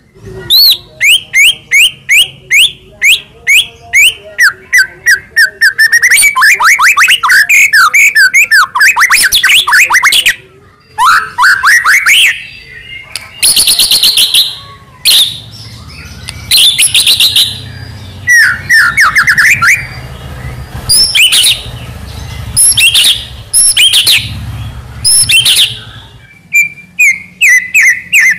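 White-rumped shama (murai batu) singing a loud, varied song. It runs through series of rapid repeated chirps, quick sweeping trills and high whistled phrases, with brief pauses between bursts.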